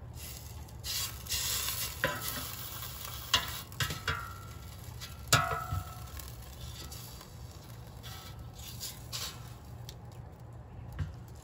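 Tongs clicking and scraping against an air fryer basket while turning hot chicken breasts, with a light sizzle from the hot basket. Several sharp clicks, the loudest about five seconds in.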